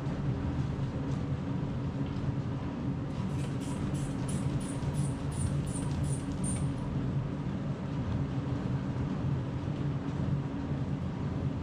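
Motorised treadmill running steadily with a person walking on it: a constant low motor and belt drone. About three seconds in comes a quick run of roughly ten short, high hissing ticks lasting a few seconds.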